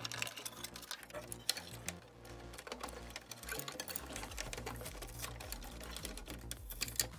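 Rapid, irregular clicking and rattling of plastic wire connectors and cables being handled inside an opened stereo unit, over faint background music.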